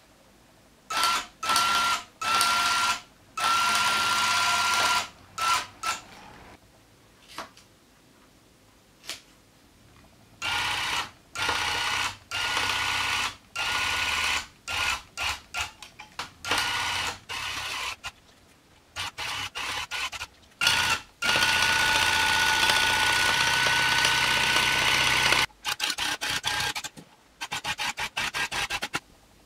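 Electric loop-pile tufting gun punching yarn into tufting cloth in start-stop bursts, each run carrying a steady high whine. Most runs last a second or less; one near the end lasts about four seconds and is followed by a string of quick stutters.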